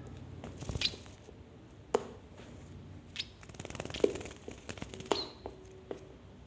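A small munia giving a few short, high peeps among scattered light taps and clicks.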